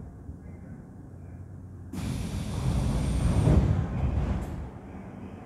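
Subway car's compressed-air system letting out a sudden loud hiss about two seconds in, swelling and then dying away over about two and a half seconds with a short extra puff at the end, over the car's steady low rumble.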